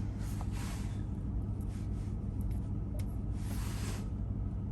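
Ram TRX's supercharged 6.2-litre V8 idling, a steady low hum heard from inside the cabin, with a few light clicks and two short soft hisses.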